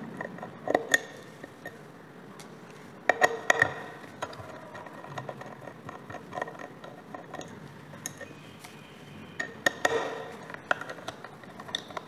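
Small metallic clicks and clinks of a screwdriver and tweezers on the screws of a hard disk drive's platter clamp as it is unscrewed, coming in short clusters about a second in, around three seconds in and again near ten seconds.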